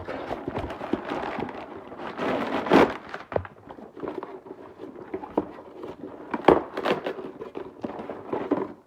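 Toy packaging being opened by hand: plastic and cardboard crinkling and crackling, with sharp clicks and knocks throughout, loudest about three seconds in and again a few seconds later. It cuts off suddenly at the end.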